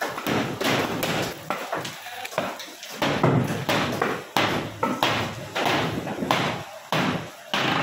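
Timber boards and bamboo props clattering as formwork is knocked loose from under a concrete slab and dropped: irregular wooden knocks and bangs, two or three a second.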